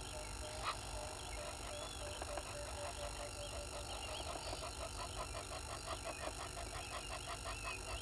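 Wild animal chorus: a rapid pulsing call repeated several times a second, with thin high bird chirps scattered over it and one sharp click about two-thirds of a second in.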